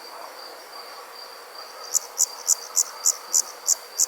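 Insects calling: a steady high trill, joined about halfway in by sharp, louder chirps repeating about three times a second.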